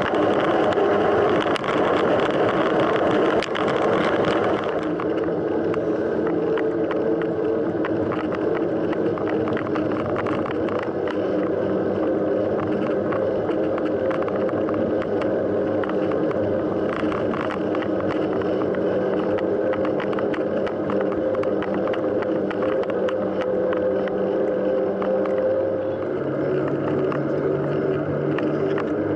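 Mountain bike being ridden: steady tyre and wind noise with many small rattles and knocks, and a held hum that shifts in pitch near the end.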